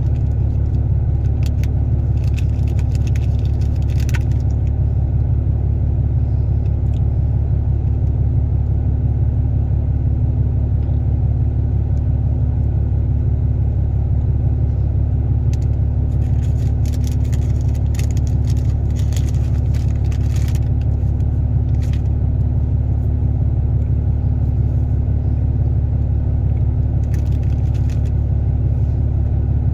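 A steady low hum runs throughout. Over it come several short spells of wet, crackly cookie chewing close to the microphone: one a few seconds in, a longer one around the middle, and a brief one near the end.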